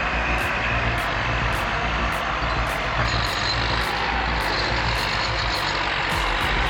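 Heavy machine's engine running steadily under load, a dense continuous mechanical noise with a deep low rumble, and a regular high ticking about twice a second over it.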